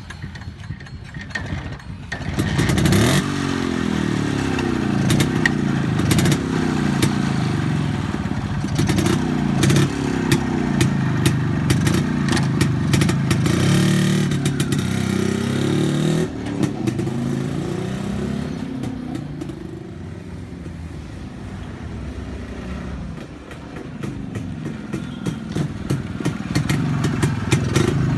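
Yezdi CL II 250's single-cylinder two-stroke engine running and revved up and down again and again, its pitch rising and falling in repeated sweeps, with a quieter stretch a little past the two-thirds mark before it is opened up again.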